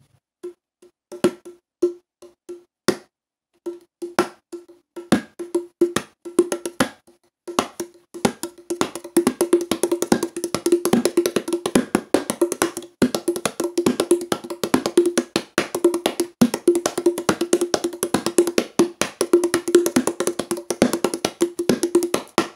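A double tam-tam drum being beaten: sharp, knocking strikes on one pitch. They come as scattered single hits at first, then from about eight seconds in as a fast, continuous rhythm.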